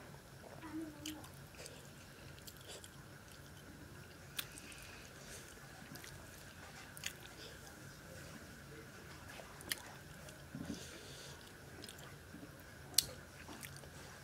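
A person eating fish and rice by hand, close-miked: soft chewing and wet mouth sounds, with four sharp clicks spread two to three seconds apart.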